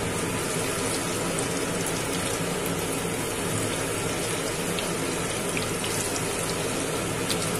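Breadcrumb-coated fish fingers sizzling steadily in hot oil, a continuous frying hiss with light crackles.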